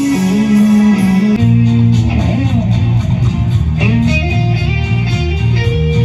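Live electric guitar playing a melody through stage speakers, with a steady beat and bass line coming in about one and a half seconds in.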